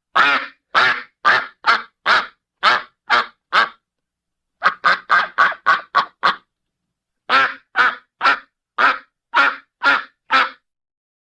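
A duck quacking in three quick runs of about seven or eight quacks each, with short pauses between the runs, a cackling series that sounds like laughter.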